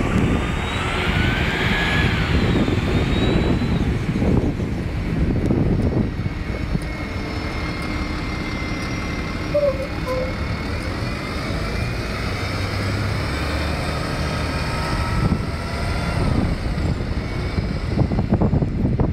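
Vicinity Classic transit bus pulling away and driving off, its engine running with a whine that rises and falls as it accelerates through the turn, over a low rumble.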